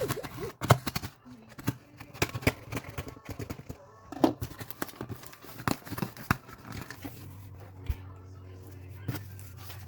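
A package being opened by hand: irregular tearing, crinkling and rustling of the packaging, with scattered sharp clicks and knocks.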